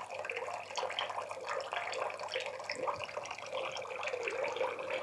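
Rinse water running steadily from a manual washing machine's drain tube and splashing into a nearly full bucket.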